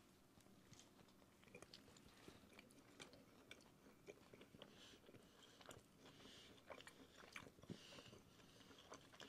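Faint chewing: two people biting into and chewing crispy chicken tacos in flour tortillas, with scattered small mouth clicks and smacks.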